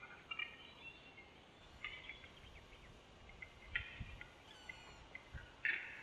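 Male Eurasian capercaillie displaying at the lek: short, harsh clicking and rasping song phrases that come about every two seconds.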